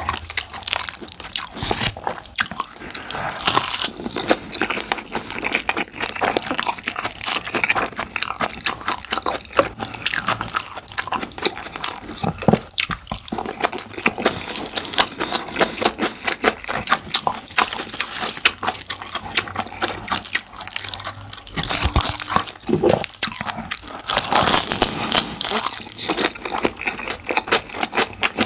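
Close-miked eating sounds: a person chewing rice with jajang black-bean sauce and curry, a dense run of wet smacking and clicking mouth noises with some crunching.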